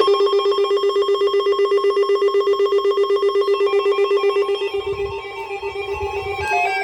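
Electronic alert tone: one steady pitched note pulsing rapidly, like a trilling telephone ring. Past the middle, a run of stepping electronic notes and a few low thumps join it.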